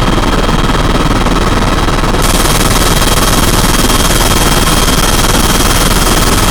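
Loud, steady helicopter engine and rotor noise with a fast, even low pulsing.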